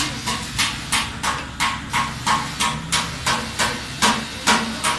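Repeated hammer blows during a tractor tyre repair, struck at an even pace of about three a second, with a couple of heavier blows about four seconds in.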